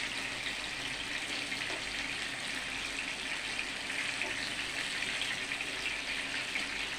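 Hot oil sizzling steadily as masala- and besan-coated sponge gourd (gilki) pieces shallow-fry in a pan.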